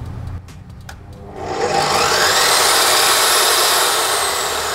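DeWalt DW872 slow-speed metal-cutting chop saw with a 355 mm carbide-tipped blade being switched on: a few clicks, then the motor soft-starts, its whine rising over about a second to a steady free-running hum. Near the end the whine starts to fall in pitch.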